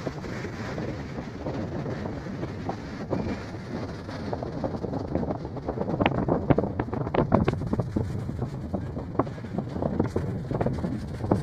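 Ocean surf rushing onto a beach, with wind buffeting the microphone. From about six seconds in, the wind noise turns into louder, sharp crackles.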